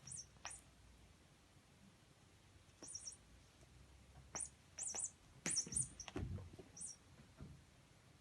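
Squeaky toy squeaking in short, high-pitched bursts as a cat bites and bats at it, about ten squeaks in irregular clusters, with soft thumps and scuffling from the tussle about two-thirds of the way through.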